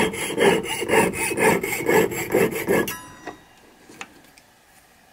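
Jeweler's saw blade cutting a small piece of sheet metal on a wooden bench pin, about four rasping strokes a second. The sawing stops about three seconds in, followed by a couple of light clicks.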